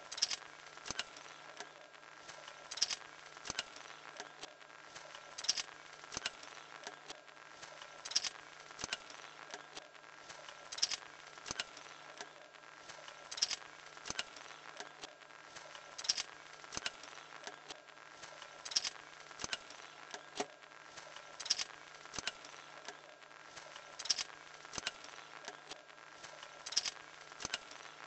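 Homemade wooden-stick drawing machine running on a small electric motor: a faint steady hum with light clicking and ticking from the wooden linkage, and a louder click about every three seconds.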